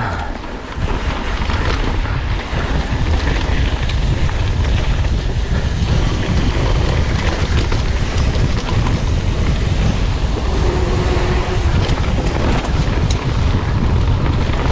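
Wind rushing over the microphone of a mountain bike rider's camera during a descent, picking up about a second in, with a few clicks and knocks from the bike.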